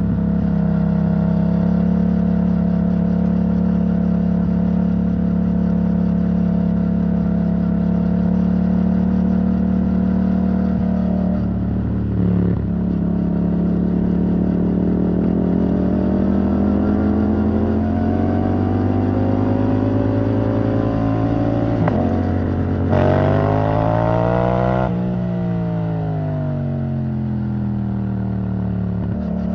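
Yamaha MT-07 parallel-twin engine through an Arrow Thunder titanium exhaust, riding along at steady revs for the first third. It then pulls steadily up through the revs, gives a short hard rise in pitch that is the loudest moment, and the revs fall away as it slows before settling back to a steady note near the end.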